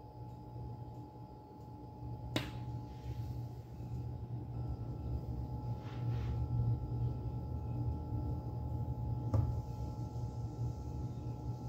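Induction cooktop humming as it heats an oiled stainless steel pan: a steady low hum that grows louder a couple of seconds in, with a faint high whine. Two sharp clicks, about two seconds in and near the end.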